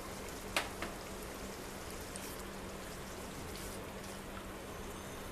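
Spiced mustard-and-onion paste sizzling steadily in hot oil with a little water in a frying pan, as the masala is cooked down. There is a sharp tap about half a second in and a lighter one shortly after.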